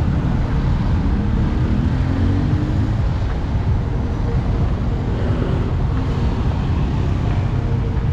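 Steady city street noise, mostly the low rumble of passing traffic.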